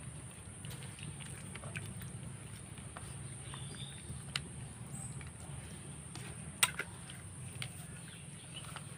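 Soft wet squelching of a hand mixing hilsa fish pieces into mustard spice paste in a steel tiffin box, with scattered light clicks, the sharpest about six and a half seconds in, over a steady low hum.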